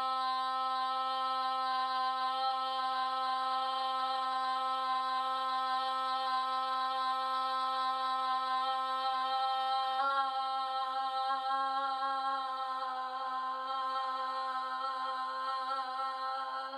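A woman's voice holding one long, unbroken 'aah' on a steady pitch: a long-tone breath and voice exercise. The pitch lifts slightly about ten seconds in and the tone weakens toward the end before stopping abruptly, which she judges as going a little sharp and fading out.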